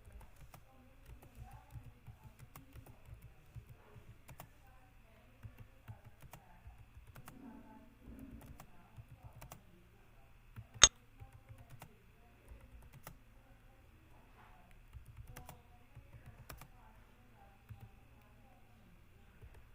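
Computer keyboard keys being typed in an uneven stream of light clicks during a home-row typing drill. About halfway through, one much louder sharp click stands out.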